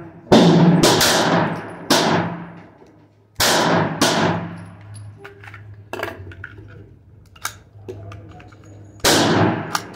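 Hi-Point pistol firing: about five shots in the first four seconds, unevenly spaced, each with a ringing tail under the range's roof, then another gunshot about nine seconds in.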